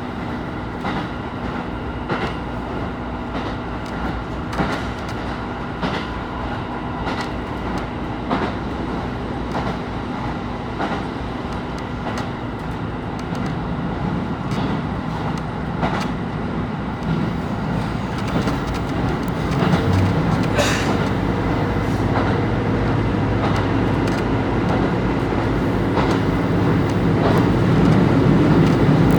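KiHa 25 diesel railcar running, heard from inside the car: wheels click over rail joints over a steady running hum. About twenty seconds in, the low engine note grows louder and keeps building toward the end.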